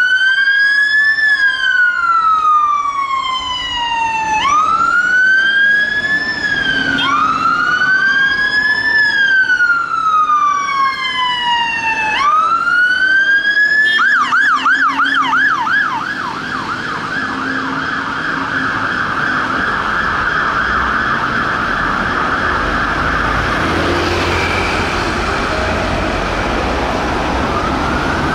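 Fire engine siren on a Mercedes-Benz Atego pump: a wail that rises quickly and falls slowly, repeated over and again, then about halfway through switching suddenly to a rapid yelp and a fast warble. A low diesel engine rumble comes up under the siren in the later part.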